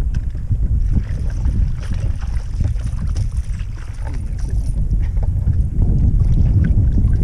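Strong wind buffeting the microphone, a steady low rumble that swells near the end, with a few faint clicks over it.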